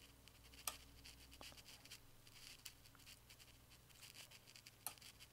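Near silence: room tone with a faint low hum and two small clicks, one about a second in and one near the end.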